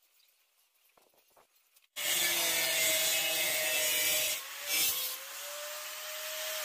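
Angle grinder with a cut-off disc cutting through a rusty curved steel sheet. The loud cutting noise starts suddenly about two seconds in, dips briefly past the middle, and carries on with a steady tone to the end.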